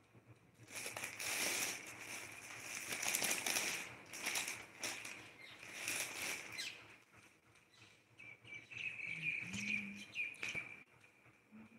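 Rustling and brushing noise close to the microphone, in uneven bursts over the first seven seconds and again near the end, as of clothing and a phone being handled.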